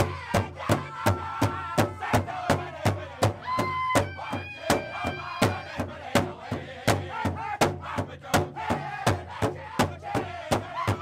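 Pow wow drum group: a dozen men striking one large shared drum with sticks in a steady beat of about three strokes a second while singing together in high, strained voices. Near the middle the voices hold long high notes.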